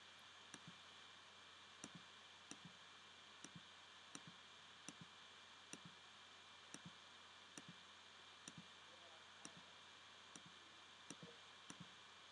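Faint computer mouse clicks over a low steady hiss. Each click is a quick press-and-release pair, and they come about once a second, placing the points of a polygonal lasso selection.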